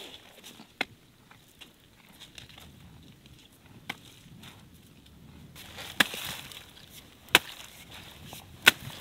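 Axe chopping through cabbage stalks: a couple of lighter strikes, then three sharp chops near the end, a little over a second apart.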